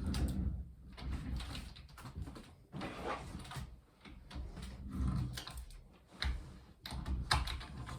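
A person's heavy breathing close to the microphone, swelling about once a second, mixed with short knocks and rustles of things being handled.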